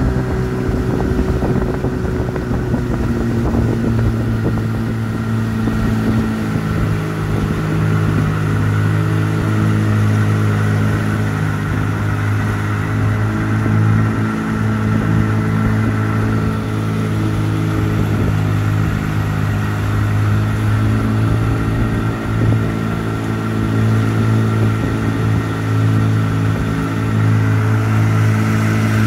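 Outboard motor on a small aluminium boat running steadily at cruising speed. Its pitch eases down a little about three seconds in, then holds even.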